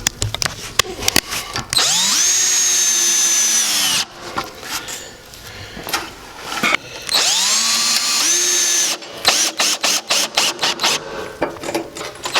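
Power drill driving Cat's Claw fasteners through a 1/4-inch hex bit. It makes two short runs, each spinning up to a steady whine for about two seconds. Clicking comes at the start and in a rapid even series near the end.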